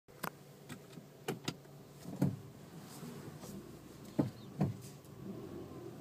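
Suzuki Swift's brakes giving a series of short knocks, about eight in all, the loudest about two seconds in and twice just after four seconds, as the car brakes while creeping forward. The noise comes only when braking at low speed with the steering turned left or right, not with the wheels straight.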